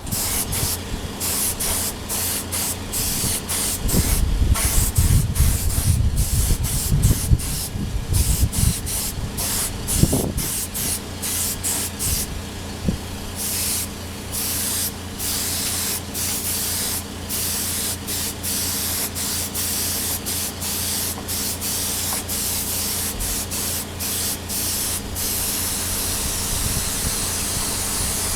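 Paint spray gun spraying clear coat onto a motorcycle wheel: a loud hiss of spray cut by many short breaks as the trigger is let off between passes, over a steady low hum.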